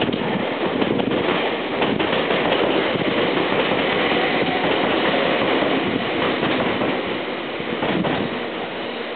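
Four-car Enoden electric train passing over a level crossing: a steady rumble of wheels on rail, with sharp clacks as the wheels cross the rail joints, most marked near the start and again near the end.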